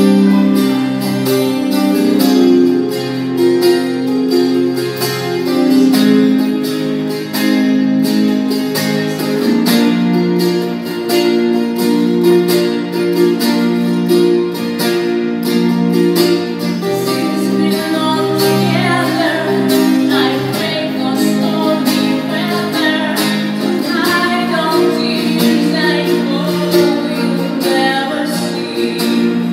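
Acoustic guitar played through a small amplifier: an instrumental passage of held chords and picked notes. About two-thirds of the way through, a woman's singing voice comes in over the guitar.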